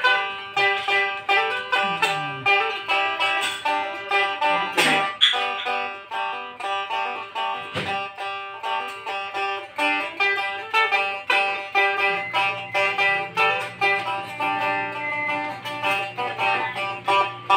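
Blaan fuglong, a two-stringed boat lute, played with a quick run of plucked notes over a steady drone note; a lower held note joins about two-thirds of the way through.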